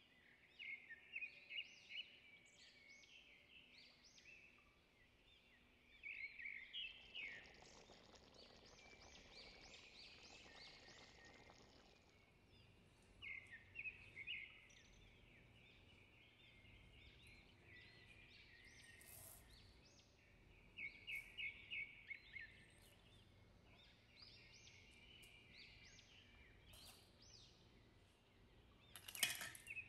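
Small birds chirping in quick runs of high notes that come back every few seconds over faint background hiss, with a soft rushing noise for several seconds in the first half and a short sharp clatter near the end.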